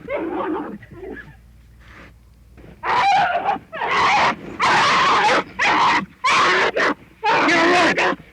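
Bear vocalising: low, quiet grunts at first, then from about three seconds in a run of about six loud, harsh cries with a wavering pitch, one after another with short breaks.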